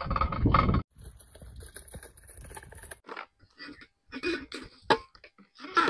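Handling noises: a short rumbling noise at the start, then faint rustling with scattered light knocks, clicks and scrapes.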